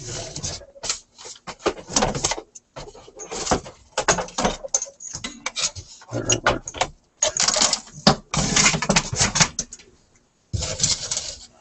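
Metal chassis of a Sparton 99 tube radio being tipped up on its side and shifted into place on a workbench. It makes a run of irregular clunks, scrapes and rattles with short pauses between them.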